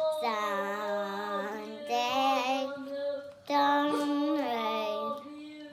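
A singing voice holding long, gliding notes in three phrases, the last about three and a half seconds in, with no clear words.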